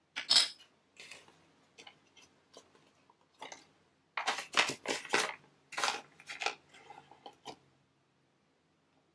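Hard plastic toy play-set pieces clicking and clattering as they are handled and set down: a sharp knock at the start, a few scattered light clicks, then a quick run of clatters in the second half.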